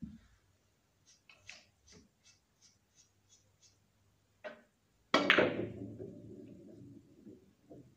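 A three-cushion billiard shot. The cue tip clicks against the cue ball about four and a half seconds in, and about half a second later comes a loud, sharp clack of balls colliding. The clack is followed by the balls rolling on the cloth and a light knock near the end. Before the shot there is a run of faint, even ticks, about three a second.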